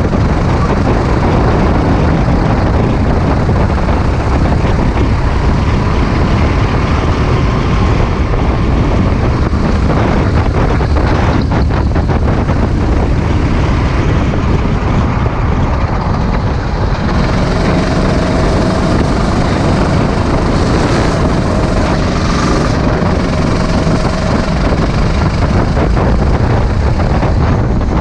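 Sodi RT8 rental kart's engine running on track, heard from the driver's seat, with heavy wind noise on the microphone; a loud, steady drone.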